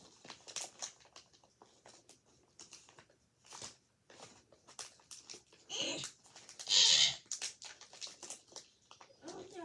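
Small bag of Sour Skittles being handled, with scattered small crinkles and clicks and a short, louder rustle about seven seconds in.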